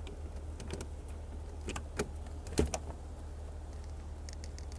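A few light clicks and knocks as a car battery and its plastic terminal cover are handled, the sharpest about two and a half seconds in, over a steady low hum.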